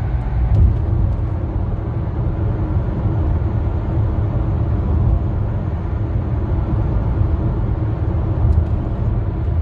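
Inside the cabin of a 2009 Hyundai Santa Fe on the move: a steady low rumble of engine and road noise.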